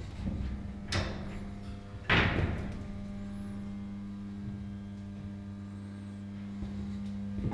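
Steady hum of running machinery in a ship's engine room, with two loud metallic clanks about one and two seconds in.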